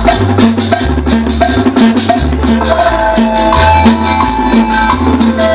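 Cumbia played loud over a sound system: a bass line stepping between notes in a steady rhythm under continuous percussion, with a higher melody line coming in about three seconds in.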